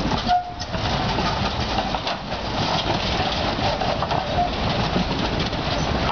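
Ganz CSMG articulated tram passing at close range, its wheels running along the rails with a steady mix of rolling noise and rattle. Short high notes are heard about half a second in and again at about four and a half seconds.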